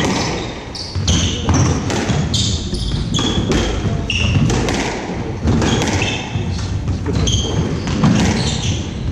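Squash rally: the ball cracking off rackets and the court walls in a quick run of sharp hits, with short high squeaks of court shoes on the wooden floor between them.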